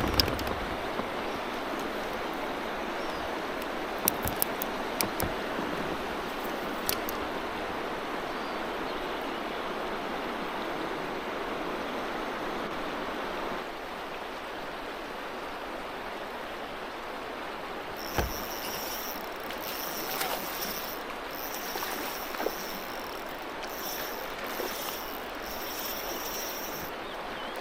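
Steady rush of flowing river water. A few sharp clicks come about four to seven seconds in, and in the second half a high whine comes and goes in stretches of a second or two.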